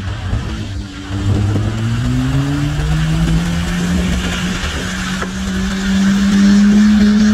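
A car engine revs up as the car slides sideways on snow. Its note climbs steadily from about a second in and is held high near the end, with tyres spinning and hissing on the snow.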